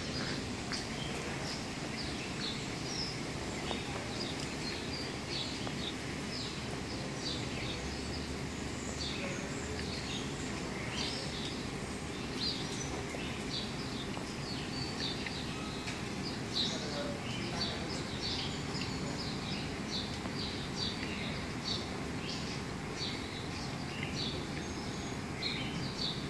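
Birds chirping again and again, in many short high calls, over a steady low hum of outdoor background noise.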